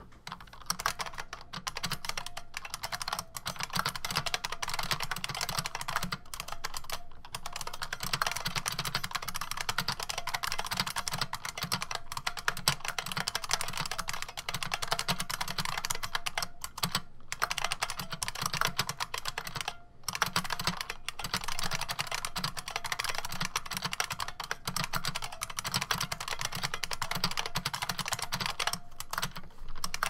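Fast continuous typing on an IBM Model M keyboard (model 1391401, about 1988), its buckling-spring keys clicking rapidly. The typing starts about a second in and breaks off briefly a few times.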